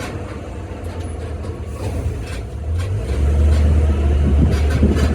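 The Zoomobile tour tram's motor running as it drives along, a steady low drone that gets louder about three seconds in.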